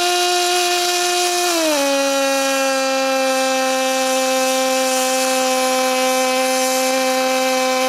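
Pulsed MIG arc from an HTP Pro Pulse 200 welding aluminum: a steady, high buzz at the pulse rate over a hiss. Its pitch steps down slightly about two seconds in.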